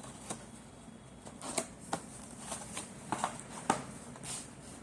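Scattered light clicks and rustles of firework boxes and packaging being handled.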